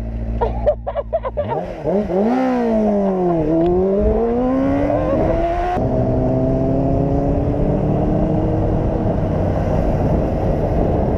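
Motorcycle engine under way, its pitch dipping and then climbing as it accelerates. About halfway through the sound changes abruptly to a steadier, slowly rising engine note with a rushing noise behind it.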